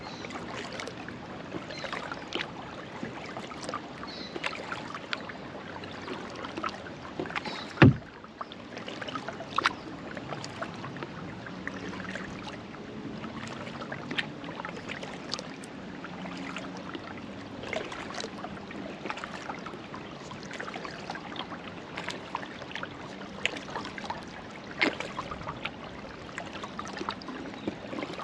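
Kayak paddling: water splashing and dripping off the paddle blades with many small drips and clicks, and one sharp knock about eight seconds in.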